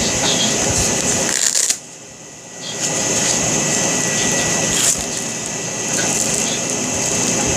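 Steady, loud background hiss with a constant high whine. It cuts out for about a second, two seconds in, and a faint click comes near five seconds.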